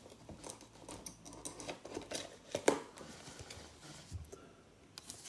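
Hands handling trading cards in plastic sleeves: light rustling of plastic and card stock with scattered small clicks and taps, one sharper click about halfway through.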